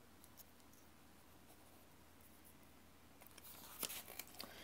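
Near silence, then a faint rustle of paperback book pages being turned, with a few soft ticks, starting about three seconds in.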